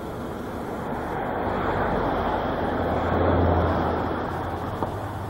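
A road vehicle passing, its engine and road noise swelling to a peak a little after the middle and then fading.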